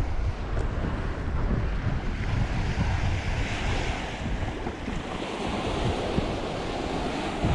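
Wind buffeting the microphone over the wash of sea waves at high tide.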